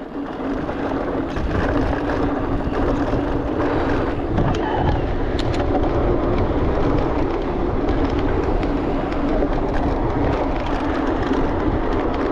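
Wind rushing over the rider-mounted action camera and knobby tyres rolling on a dirt trail during a mountain-bike descent, with frequent small clicks and rattles from the bike. It grows louder over the first second or two, then holds steady.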